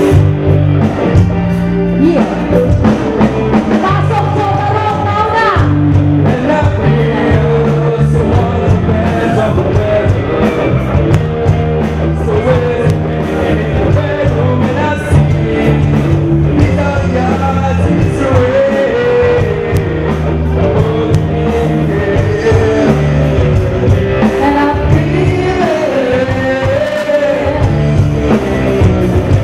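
Live rock band playing a song with drum kit, electric guitar and keyboard, with male singers on microphones singing over it.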